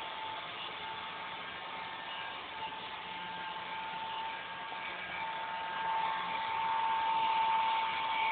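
Robot vacuum cleaner running: a steady whir with a hum held at one pitch, growing a little louder in the second half.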